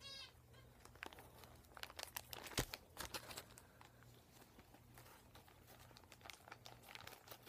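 Faint crinkling and rustling of a clear plastic zip-top bag being handled and pulled open, with scattered small crackles and one sharper tap about two and a half seconds in.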